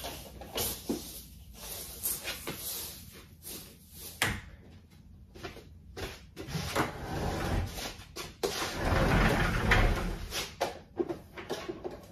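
Knocks, clatters and rustling of household things being moved and put away, with a small cupboard door being handled; the busiest, loudest stretch of bumping and rustling comes near the end.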